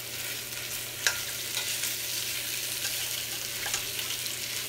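Lamb pieces sizzling as they brown in hot olive oil in a stainless steel pot, stirred with a metal spoon that clinks sharply against the pot about a second in and again at the end.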